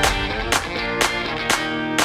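Background music: strummed guitar chords on a steady beat, about two strokes a second.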